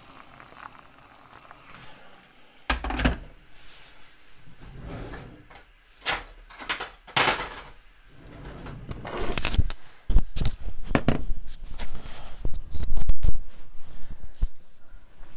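Kitchen handling sounds: a few separate knocks and clunks, then a busier run of clattering and deep thuds for a few seconds in the second half, as crockery, the kettle and utensils are set down and moved on a counter.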